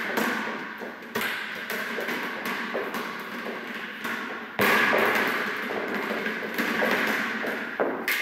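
Three thumps a few seconds apart, the middle one loudest, from a rubber play ball hitting the floor or wall, each one echoing around a large hall.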